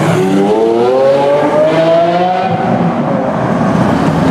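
Lamborghini Aventador's V12 engine accelerating as the car pulls away, its pitch climbing steadily for about two and a half seconds, then dying away.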